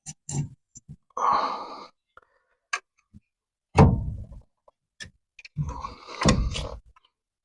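Heavy steel wheel hub assembly being worked onto the splined front axle shaft and into the steering knuckle: scattered metal clunks and knocks, a short scrape about a second in, a heavy thunk near four seconds in and a cluster of knocks near six seconds in.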